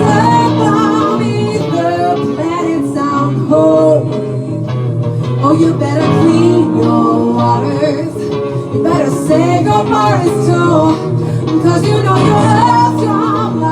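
Music: a singing voice carrying a wavering melody over a steady low accompaniment.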